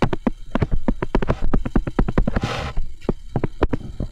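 Stylus tapping and clicking on a tablet screen while handwriting, a fast irregular run of sharp clicks at about six a second, with a short hiss about two and a half seconds in.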